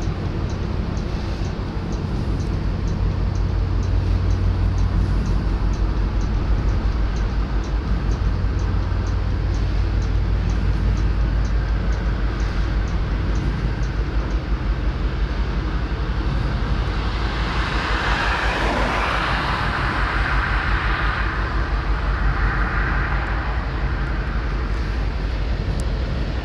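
Yamaha Super Ténéré 1200's parallel-twin engine idling steadily. About two-thirds of the way through, a passing vehicle rises and fades over several seconds.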